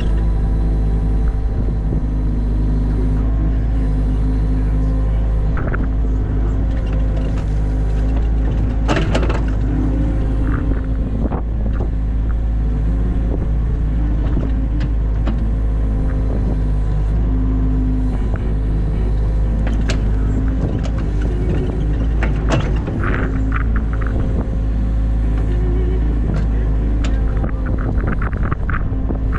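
New Holland Kobelco E50.2 mini excavator's diesel engine running steadily under digging load, heard from the cab, with a few short knocks as the bucket works the soil of a trench.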